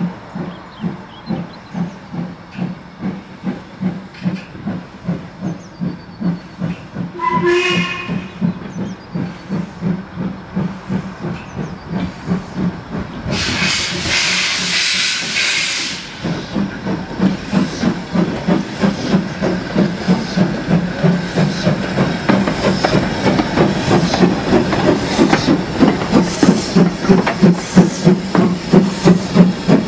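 Ivatt Class 2MT 2-6-0 steam locomotive No. 46521 working a train, its exhaust beating steadily and growing louder as it approaches and passes. It gives a short whistle blast a little under eight seconds in, and a loud burst of steam hisses for about three seconds in the middle.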